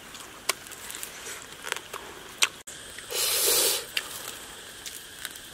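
Close eating noises from a roasted frog being pulled apart and bitten: scattered small clicks and crackles, then about three seconds in a loud rasping bite or tear lasting under a second.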